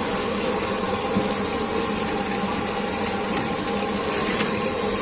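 Steady sizzling hiss of oil on a large flat iron street-stall griddle where kebabs and fried pieces are cooking, over a low hum of street traffic.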